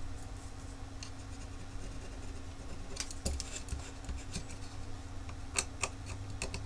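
Fingernail scraping and rubbing at the surface of a plastic IC package on a circuit board, working residue off the chip's printed part number. It makes faint scratches and small ticks, with a few sharper scrapes about three seconds in and again near the end.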